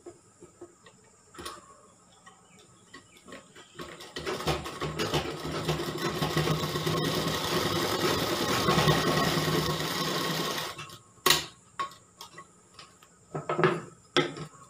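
Sewing machine running steadily for about seven seconds, stitching along a folded fabric belt. It starts about four seconds in and stops abruptly, with a few sharp clicks of handling before and after.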